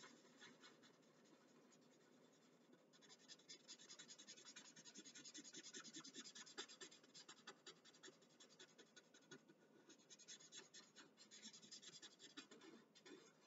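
Felt-tip permanent marker scratching faintly on paper in quick back-and-forth strokes as an area is coloured in. It is sparse at first and busier from about three seconds in.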